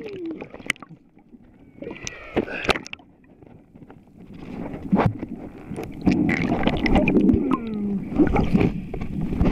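Ocean surf heard from a camera held underwater: muffled gurgling and bubbling with scattered knocks, then a louder churning rush of water from about six seconds in.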